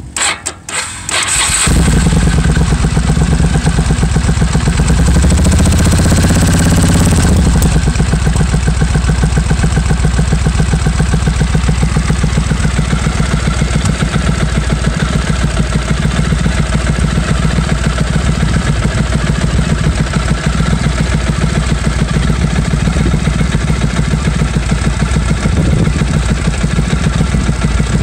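Suzuki Marauder V-twin motorcycle engine being started after carburettor adjustments: a second and a half of cranking, then it catches, revs up and back down briefly, and settles into a steady pulsing idle.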